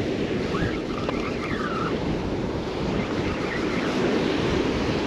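Ocean surf washing onto a beach in a steady rush, with wind buffeting the microphone and a few faint high calls in the first two seconds and again a little past halfway.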